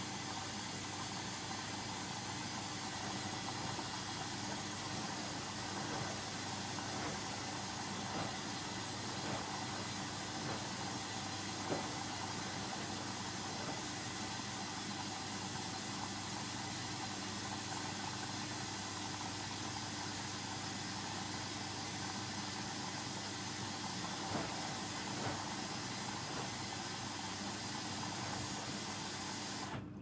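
Hoover Dynamic washing machine on a Delicate 40 wash, with a steady hiss of water running into the drum over a low hum and a few faint clicks. The hiss cuts off suddenly at the very end as the water inlet shuts.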